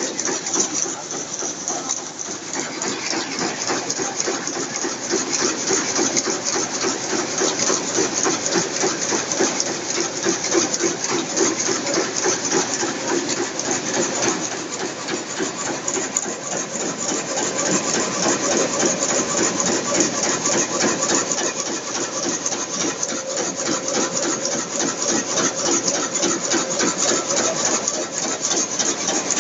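High-speed shuttleless rapier loom weaving cotton grey cloth on a dobby, running steadily with a fast, continuous mechanical clatter.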